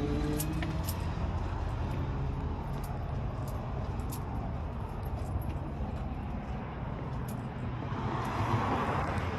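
Steady outdoor background noise with a low rumble, swelling into a louder rush near the end.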